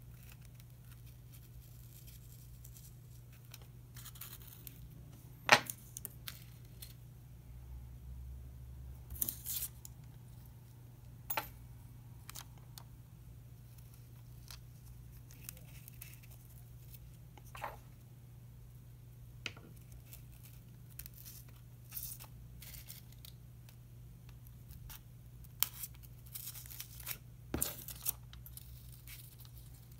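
Scattered small clicks and brief paper rustles from handling insect pins and a tracing-paper strip on a foam spreading board, the sharpest click about five seconds in and a cluster near the end, over a steady low hum.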